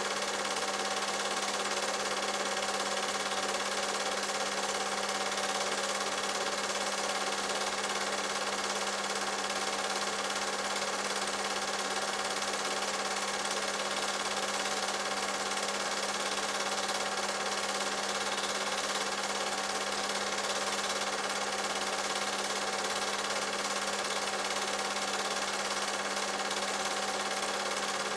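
Cine film projector running: a steady mechanical whirr and hum that never changes.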